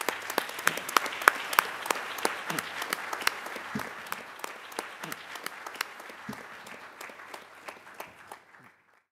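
An audience clapping, loudest in the first few seconds and slowly dying away before it cuts off abruptly near the end.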